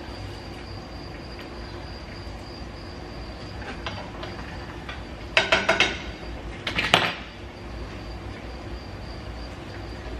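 Two short bursts of metal clinking and clattering, a utensil against a cooking pot, about five and seven seconds in, over a steady low hum.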